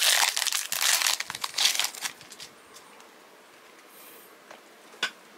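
Plastic wrapper of a Panini Prizm trading card pack being crinkled and torn open, a loud crackling rustle for about two seconds. Then it goes quiet, with a single short click near the end.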